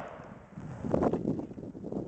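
The echo of AR-15 rifle shots dying away, then a few faint clicks and rustles about a second in.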